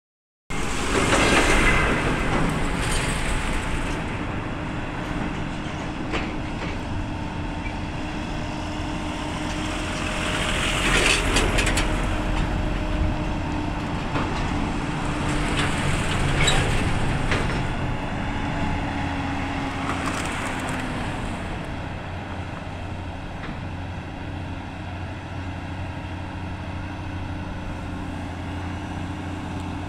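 Volvo heavy-haul trucks' diesel engines running steadily as the convoy crawls along under load, with a deep rumble and a few held engine tones. Four times, louder whooshing swells rise and fade, like heavy vehicles passing close by on the adjoining highway.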